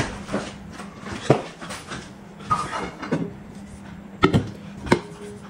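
Tableware being handled: several separate knocks and thumps, then a metal dome dish cover clanking against the plate, ringing briefly near the end.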